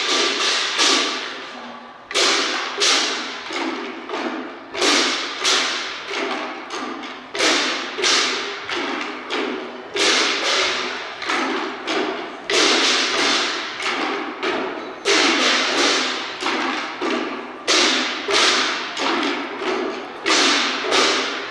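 Chinese waist drums beaten with sticks in a steady, fast rhythm, with a big accented stroke and a ringing cymbal crash about every two and a half seconds.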